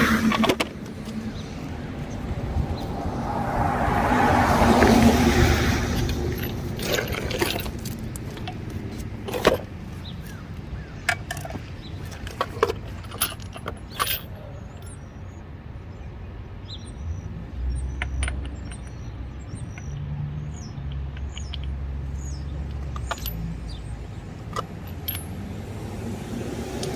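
A passing vehicle swells and fades about four seconds in, then a scatter of light metallic clinks and taps as hand tools are handled.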